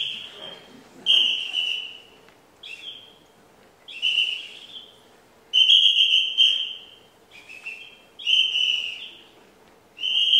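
A high-pitched whistle blown in about eight short, uneven blasts with pauses between, a few of them dipping in pitch.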